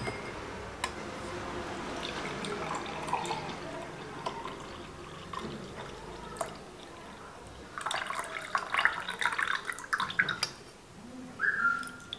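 Blended lemon-mint juice pouring in a steady stream from a mixer jar into a glass. After about eight seconds it turns to irregular dripping and small splashes as the juice runs through a steel strainer.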